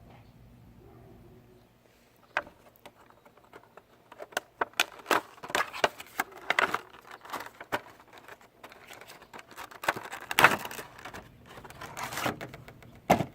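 Funko Pop vinyl figure's cardboard box and plastic insert being opened and handled: irregular crinkling, clicks and scrapes of packaging. It starts about two seconds in and comes in uneven clusters.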